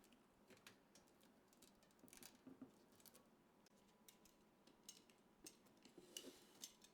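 Faint, irregular small clicks and brief scrapes of hardware being handled during PC assembly, with a slightly louder cluster near the end.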